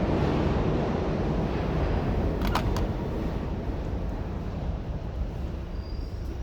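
Deep rumble of a subway train in the station, fading steadily as it pulls away. A few sharp clicks come about two and a half seconds in.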